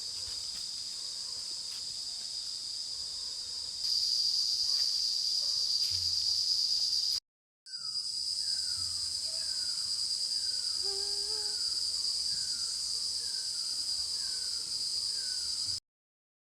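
A steady, high-pitched insect chorus that grows louder about four seconds in and breaks off briefly near the middle. After the break, a bird's short falling call repeats about once a second over the drone. All sound cuts off suddenly near the end.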